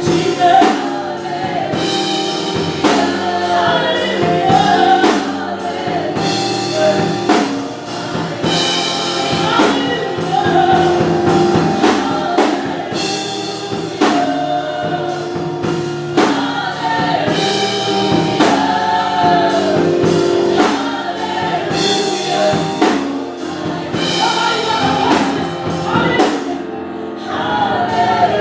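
A gospel choir singing with band accompaniment, including a drum kit keeping a steady beat.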